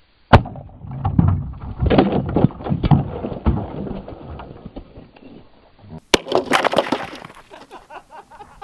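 A gunshot from a pump-action shotgun fired with its muzzle set in a concrete cylinder, blowing the concrete apart. Chunks of concrete then clatter and thud down for a few seconds. Another sharp shot comes about six seconds in.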